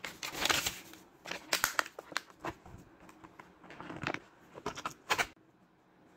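A paper instruction leaflet and a clear plastic bag rustling and crinkling as they are handled, in a run of short bursts that stops about five seconds in.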